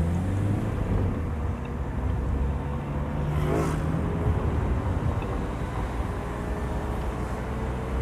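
Car engine and road noise heard from inside the moving car: a steady low drone, with a brief hiss about three and a half seconds in.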